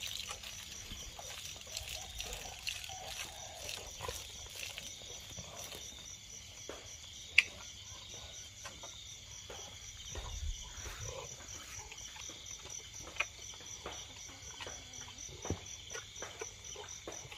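Night insects, crickets, chirping in a steady, fast, even pulse, with scattered soft clicks and one sharp click about seven seconds in.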